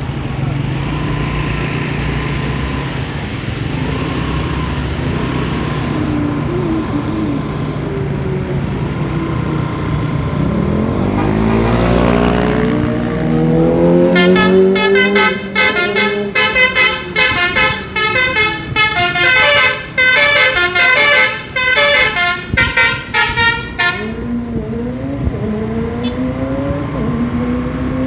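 A bus engine grows louder and rises in pitch, then a Basuri telolet horn plays a quick multi-tone melody of short chiming toots for about ten seconds, starting about halfway through, before the engine carries on alone.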